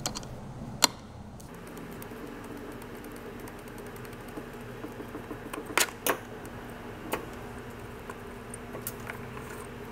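A handful of sharp clicks and light taps from a Torx screwdriver working the screws of a mass airflow sensor out of a plastic airbox and from the plastic parts being handled. The two loudest clicks come close together about six seconds in, over a steady low hum.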